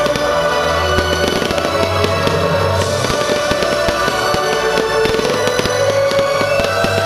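Fireworks going off in rapid, dense crackles and pops, many small bursts a second, over loud show music with sustained notes.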